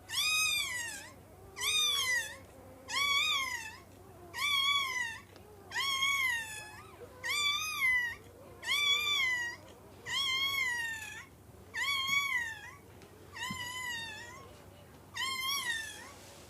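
A newborn Great Dane puppy crying over and over: high-pitched cries, each rising and then falling in pitch, about one every second and a half.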